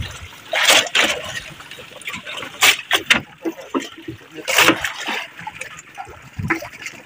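Fishing net being paid out over the side of an outrigger boat: irregular splashes as the net and its floats drop into the sea, over water lapping against the hull.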